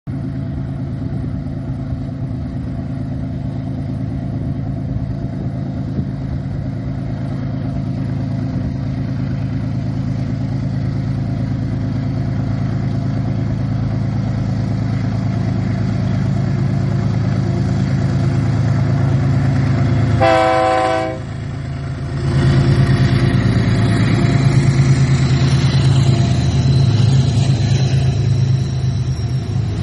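Two GE ES44ACi diesel-electric locomotives in multiple unit working hard up a grade: a deep, steady diesel drone that grows louder as they approach. About two-thirds of the way through comes one short blast of the locomotive horn, and from then on the engine noise is at its loudest.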